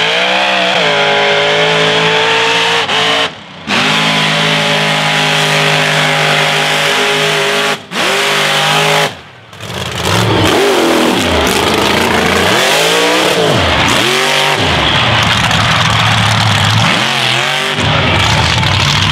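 A 2100-horsepower mega truck engine running hard at high rpm, held nearly steady for several seconds at a time, then revving up and down repeatedly in the second half. The sound cuts out briefly three times.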